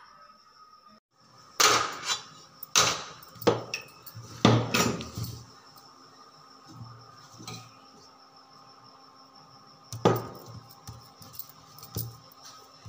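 Stainless-steel kitchen utensils (bowls and a wide plate) knocking and clattering as they are handled and set down: a cluster of sharp knocks in the first half, then two more further apart, over a faint steady hum.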